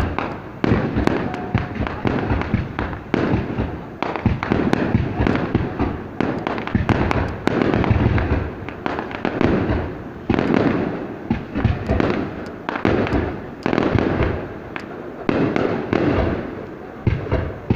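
Aerial fireworks bursting in quick succession, a dense run of bangs and crackles that swells and dips every second or two.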